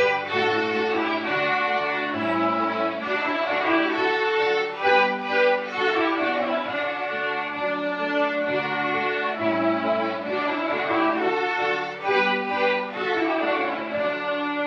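Ensemble of young violinists playing a Ukrainian folk-song arrangement, a steady melody of sustained bowed notes over a lower accompanying part.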